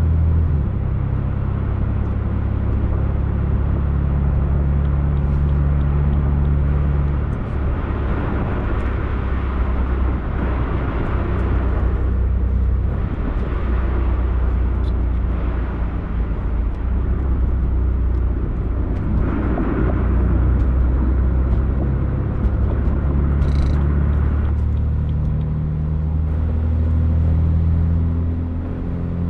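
BMW F82 M4's S55 twin-turbo inline-six exhaust, through an upgraded axle-back muffler with catless downpipes and a single mid pipe, running at low, fairly steady revs as a deep drone with small shifts in pitch now and then.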